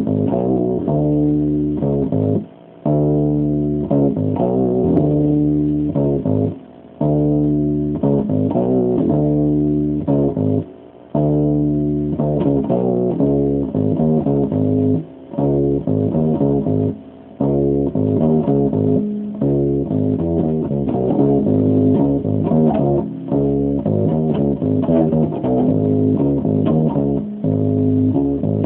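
Electric bass guitar played solo, improvising riffs of plucked notes in phrases, broken by brief pauses every few seconds.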